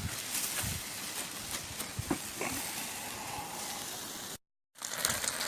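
Chicken kebabs in barbecue sauce sizzling and crackling on a Weber barbecue, with a few soft knocks. The sound breaks off for a moment about four seconds in.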